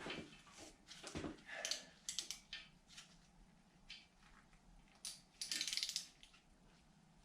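Metal hand tools clicking and knocking against engine parts as a Torx bolt on the dismantled engine is worked loose, with one short rasping burst about five and a half seconds in.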